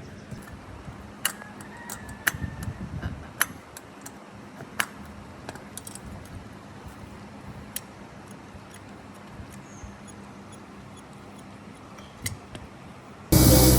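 Scattered light clicks and taps, like small hard parts or hand tools being handled, then a loud machine starts abruptly near the end with a steady hum and hiss.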